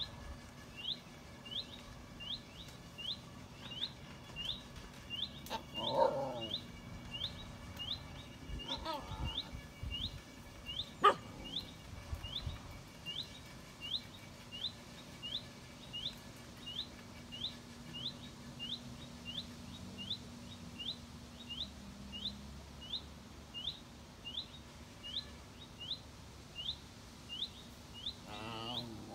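Basenjis making their barkless talking noises, short pitched grumbles about six seconds in, again around nine seconds and near the end, over a bird repeating one short high chirp a little more than once a second. A single sharp click about eleven seconds in.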